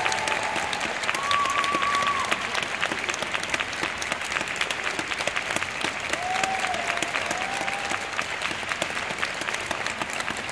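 Spectators clapping steadily. A few voices call out from the crowd, about a second in and again around six seconds.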